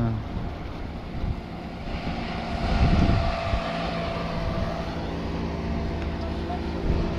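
A small motorboat's engine running steadily as the boat speeds past, a continuous hum with a hiss that swells a couple of seconds in, over low wind rumble on the microphone.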